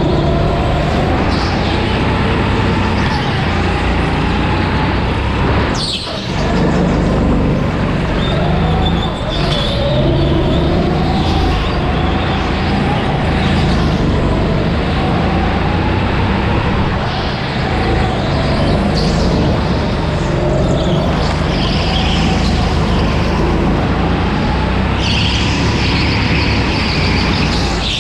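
Go-kart engine heard onboard, its pitch rising and falling as the kart accelerates and lifts off for corners, with several short high-pitched squeals over it.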